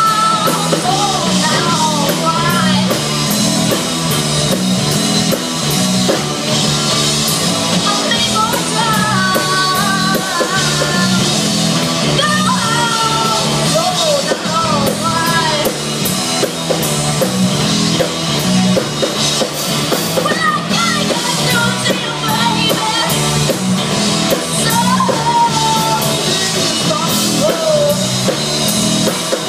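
Live rock band playing: distorted electric guitars, bass guitar and a drum kit with a steady beat, with a lead vocal coming in and out over the music in several stretches.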